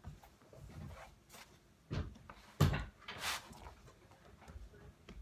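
Two dull thumps a little under a second apart about two seconds in, the second the louder, then a brief rustle, from a person moving about on the floor and gym mat.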